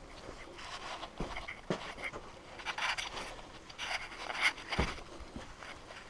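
A man panting hard from exertion in a tight cave passage, with strong breaths about a second, three seconds and four and a half seconds in. A few sharp knocks and scrapes of his movement over the rock come in between.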